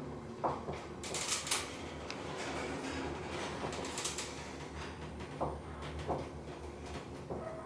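Schindler traction elevator car travelling down, with a steady low hum from the ride and a few sharp clicks. The hum fades near the end as the car slows toward its stop.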